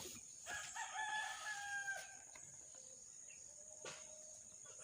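A faint rooster crowing once, a single pitched call lasting about a second and a half, over a steady high thin whine.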